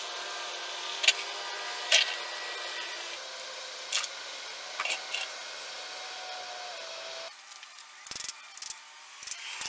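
A few short, sharp hand-tool sounds over a steady hum, then a ratchet wrench clicking in quick runs near the end as it turns the bolts of a motorcycle's clutch cover.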